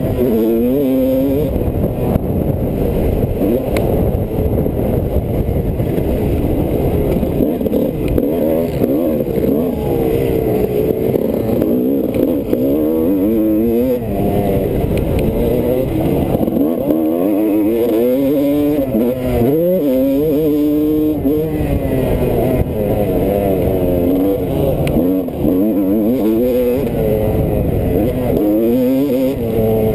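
Dirt bike engine heard close up from on board, revving up and dropping back again and again as the rider accelerates and shifts, over a heavy low rumble.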